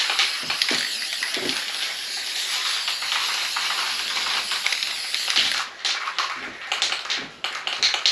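Aerosol spray can of plastic adhesion promoter spraying in a steady hiss. The hiss breaks off about five and a half seconds in, and a few short spurts follow.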